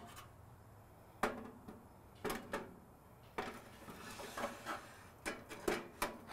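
A cast iron grate loaded with steaks being slid into the steel rails of an Otto Wilde O.F.B. overhead grill: a series of sharp metal clanks and knocks, with a brief hiss about four seconds in.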